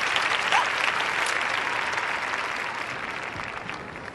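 Theatre audience applauding, dense clapping that fades away toward the end.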